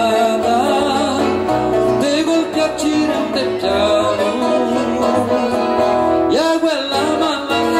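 Live southern Brazilian nativist (gaucho) music: acoustic guitar playing under a sung vocal line.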